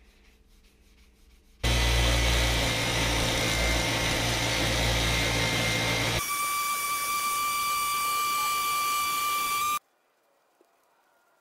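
Bench grinder spinning a cloth buffing wheel, with a waxed wooden handle pressed against it. The sound starts suddenly about a second and a half in, turns into a steadier high whine about six seconds in, and cuts off near ten seconds.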